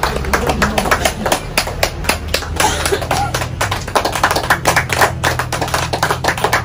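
A fast, irregular run of sharp taps or knocks, several a second, over a low steady hum.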